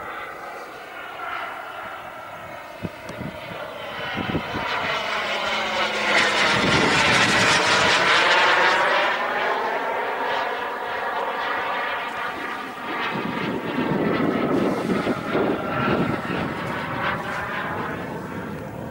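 Radio-controlled model jet flying past overhead, its engine sound swelling to its loudest a few seconds in with a sweeping, shifting pitch as it passes. It fades, then grows louder again on a second pass near the end.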